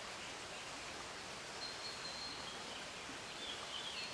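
Steady outdoor background hiss with a few faint, short, high bird chirps, one just past the middle and more near the end.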